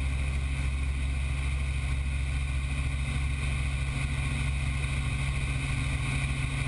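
Helicopter in flight, heard from on board: a steady low drone of rotor and engine with a fast pulsing beat from the blades.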